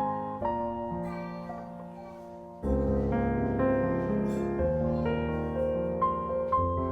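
Background music: gentle piano notes, growing fuller and louder a little over halfway through.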